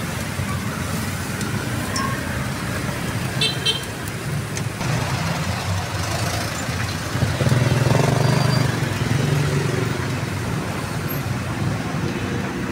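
Street traffic running steadily, with a motor vehicle passing loudest about eight seconds in.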